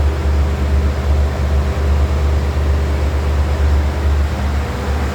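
Steady low mechanical hum, a constant drone with a few steady tones above it, like a motor or machine running continuously.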